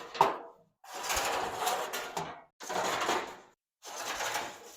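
Road signs scraping and sliding against one another as they are flipped through in a stack: a sharp knock, then three drawn-out scrapes of about a second each.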